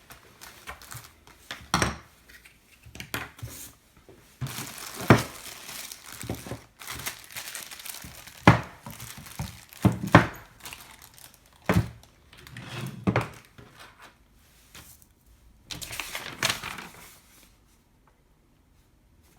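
Cardboard box and plastic packaging being handled: irregular crinkling and rustling, broken by sharp knocks as things are moved and set down. It goes quiet shortly before the end.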